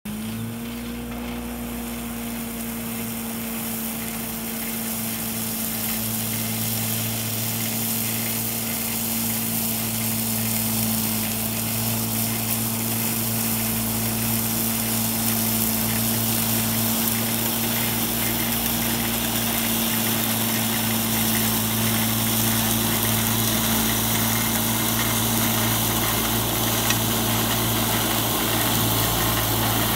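Delmorino Rino ride-on tool carrier with a front flail mower cutting grass a metre to a metre and a half tall: a steady hum at constant pitch over the hiss of the rotor shredding grass. It grows louder as the machine draws closer.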